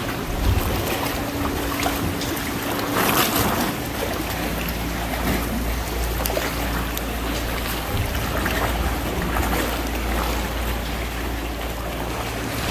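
Sea water splashing and lapping around a kayak being paddled, with one louder splash about three seconds in. Wind rumbles on the microphone throughout.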